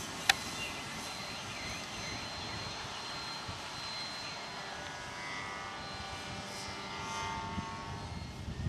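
The electric motor and propeller of a Multiplex FunCub RC plane flying overhead, a faint steady whine over a low rumble. There is one sharp click about a third of a second in.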